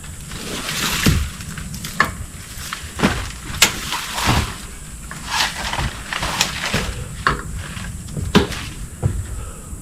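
Irregular knocks, clicks and scrapes of hands and tools working on a tree stand's seat and bolts, roughly one every half second to a second.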